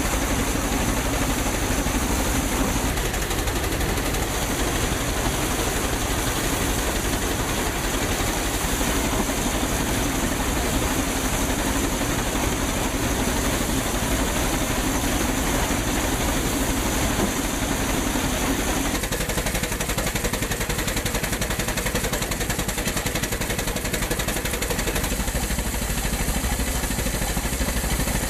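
A belt-driven threshing machine running steadily, a dense, continuous mechanical clatter and hum as grain bundles are fed into it. About two-thirds of the way through, the sound changes to a different steady machine running.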